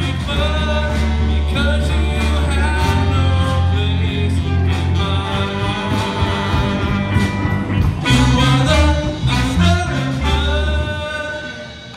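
Live band playing a song with a singer, guitars, fiddle and trombone in the mix; the music dies down near the end.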